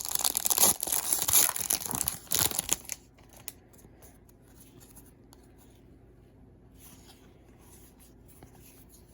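A baseball card pack's wrapper being torn open and crinkled, a dense crackling for about three seconds that stops abruptly. After that come only faint scattered ticks of the cards being handled.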